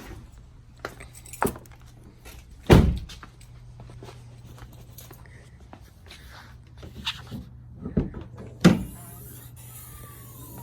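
Several sharp knocks and clicks from a car's door and interior panels being handled, the loudest about three seconds in, over a steady low hum.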